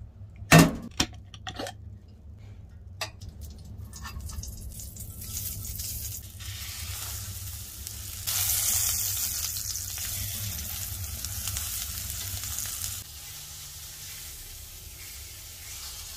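Burger patty sizzling in a skillet on a wood stove, the sizzle building and jumping louder a little past halfway, then dropping off suddenly a few seconds later to a quieter fry. A few sharp knocks come at the start, the loudest just after it begins.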